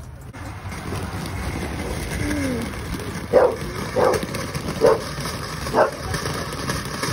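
A dog barking four times, under a second apart, over the steady hiss of a lit ground firework that starts just after the beginning.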